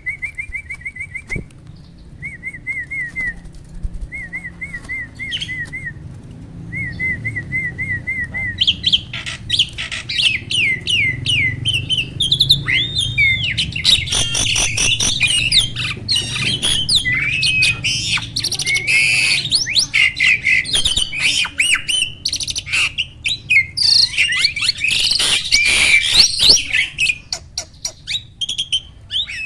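A starling (jalak) in full song. It opens with short, evenly repeated trilled phrases, then about eight seconds in breaks into a loud, varied outpouring of whistles, sliding notes, rapid clicks and harsh notes.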